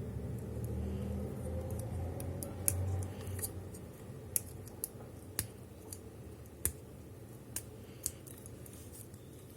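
Plastic parts of a Transformers toy robot clicking as they are moved and snapped into place, with about seven sharp separate clicks spread over several seconds. A low rumble of handling noise fades about three seconds in.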